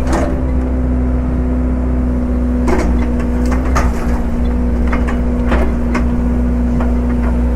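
Excavator's diesel engine running at a steady, even pitch, with several sharp knocks and clacks through it as wood rounds are handled.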